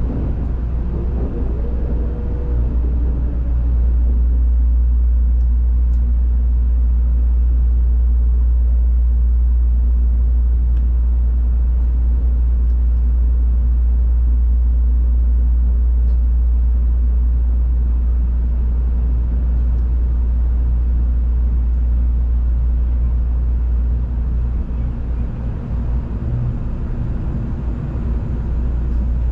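Cabin running noise inside a Tokaido Shinkansen N700-series train moving between stations: a steady low rumble. A short whine glides up and down in the first few seconds, and the rumble grows a little louder about four seconds in.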